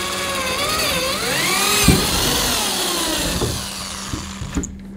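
Electric drill boring a hole through the tip of a ski into a wooden backing block. The motor whine slides up and down in pitch as the bit cuts, then eases off and stops near the end.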